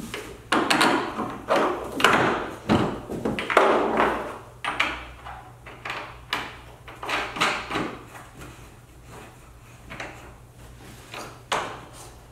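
Hard plastic parts knocking, scraping and clicking as a Power-Pole Micro anchor is fitted onto its mounting bracket; the handling is busiest for the first several seconds, then a few lighter clicks follow.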